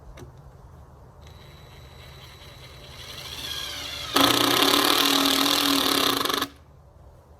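A handheld power tool's motor winds up, rising in pitch from about a second in, then runs loud and steady for about two seconds and stops abruptly.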